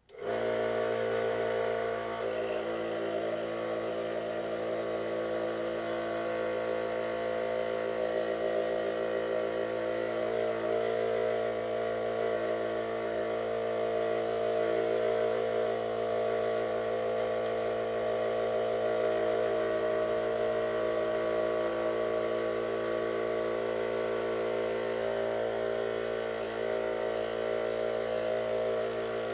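Dremel Moto-Shop scroll saw switching on and running steadily with an even motor hum, its blade cutting thin 5 mm plywood.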